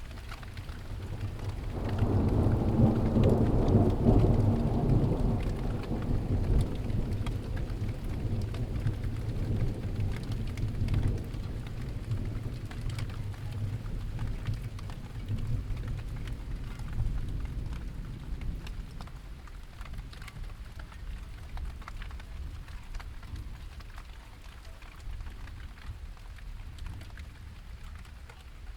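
Steady rain falling with a long roll of thunder that swells about two seconds in and slowly rumbles away over the following fifteen seconds or so.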